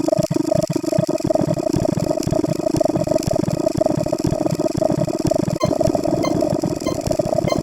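A dense, rapid stream of sped-up sound effects blurring into a steady rattling buzz with two held pitches. From about two-thirds of the way in, faint short high beeps repeat a few times a second.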